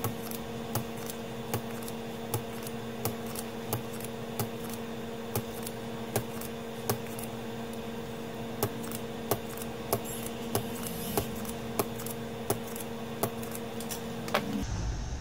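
Electric desoldering tool's vacuum pump humming steadily while solder is cleared from capacitor through-holes on a circuit board, with sharp clicks at an even pace of about three every two seconds. The hum stops shortly before the end.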